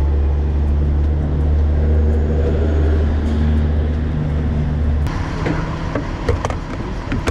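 Steady low drone of a pickup truck on the move. About five seconds in it cuts off sharply and gives way to fuel-pump sounds, with a faint steady hum and a few sharp clicks and knocks as the nozzle is handled.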